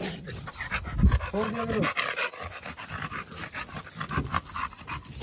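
Pit bull panting hard while it strains on its chain, with a loud thump about a second in.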